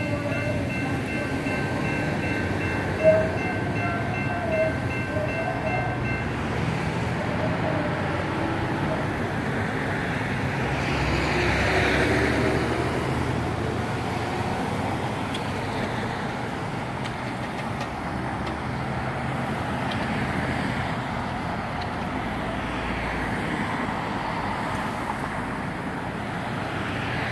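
General Signals Type 2 electronic crossing bell ringing in quick, even strokes, stopping about six seconds in as the gates begin to rise. Road traffic and the light-rail train moving off carry on as a steady rumble, with a car passing about twelve seconds in.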